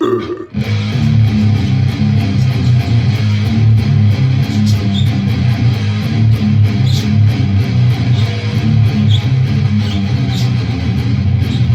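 Electric guitar tuned down to drop A playing a heavy, low riff, continuous and loud throughout.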